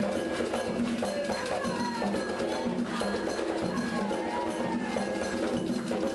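Candomblé Angola ritual music for Iansã (Matamba): atabaque hand drums and a metal bell keep a steady, fast rhythm under voices singing the cantiga.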